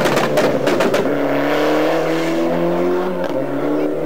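Proton rally car going by at speed, with a rapid run of sharp pops and crackles as it passes. The engine note then climbs, drops back at a gear change and climbs again as the car pulls away.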